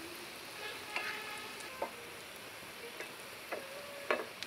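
Oil sizzling steadily as egg-and-potato chops shallow-fry in a pan, with about four sharp clicks of a fork against the pan, the loudest near the end.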